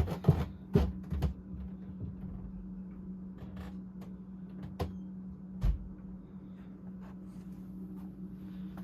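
1987 Casablanca Delta 2 Slumber 3 ceiling fan running on medium speed, its motor giving a steady low hum. A few sharp clicks and knocks come over it, mostly in the first second and a half and once or twice more around the middle.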